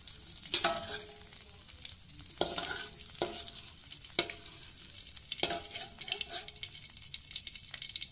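Hot cooking oil sizzling in a wok while a metal slotted spatula scrapes and clinks against the pan, lifting out fried chillies, shallots and garlic. About five sharp metallic clinks ring out at uneven intervals over the sizzle.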